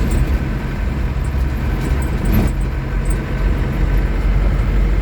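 Isuzu Panther pickup's 2500 cc direct-injection diesel engine running steadily while the vehicle is driven, with road noise.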